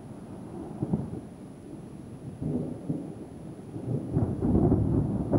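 Rolling thunder rumbling low and continuously, swelling louder about four seconds in.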